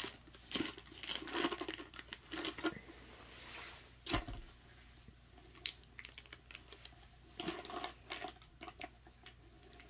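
Clear plastic sleeve crinkling and rustling as a rolled set of posters is slid out of it, in irregular crackles and clicks. About four seconds in there is a single thump as the roll is set down on the wooden desk.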